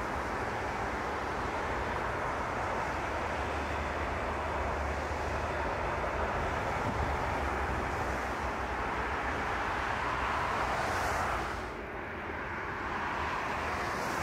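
Airbus A380 jet engines running with a steady, even noise that dips briefly near the end.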